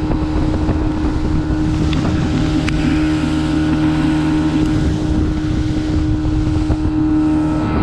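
Outboard motor of a fishing boat running steadily at speed, with water rushing along the hull and wind buffeting the microphone.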